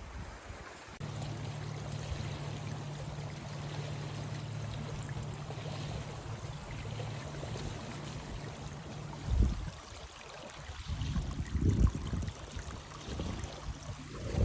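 Water flowing steadily, under a low steady hum that stops about nine seconds in. A few dull low thumps follow near the end.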